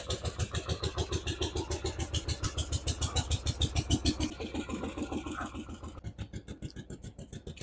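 Harley-Davidson Shovelhead V-twin of a 1981 FXWG Wide Glide idling with a steady pulsing beat, running well after its transmission and electrical repairs.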